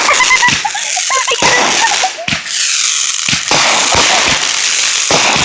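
Consumer fireworks going off: a rapid series of sharp bangs and crackles, with short whistles early on and a hiss between the reports.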